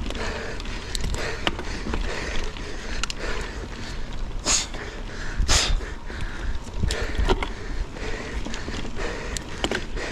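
Mountain bike riding down a dirt trail: tyres rolling over dirt and roots, with scattered rattles and knocks from the bike, and a low rumble of wind on the microphone. Two short hissing bursts come about four and a half and five and a half seconds in.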